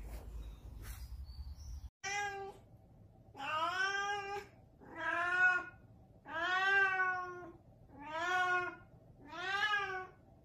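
A domestic cat meowing over and over, starting about two seconds in: one short meow, then five drawn-out meows about a second long each, with short gaps between them. Each meow rises and falls in pitch.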